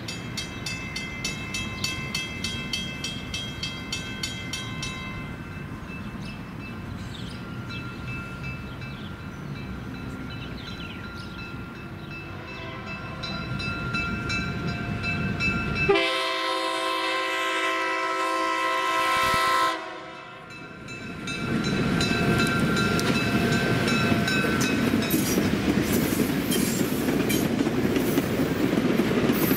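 Diesel locomotive air horn sounding multi-note chords on historic EMD locomotives, with one loud close blast about halfway through. In the last third the passenger train passes close and loud, its wheels clattering over the rail joints.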